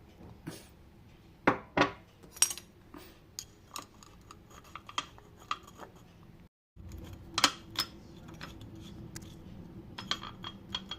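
Kitchen utensils and dishes clinking and knocking irregularly, metal tapping on a pot and cup as boiled oregano leaves are strained, with a sharp pair of knocks about one and a half seconds in. About halfway the sound cuts out for a moment, then the clinks go on over a low steady hum.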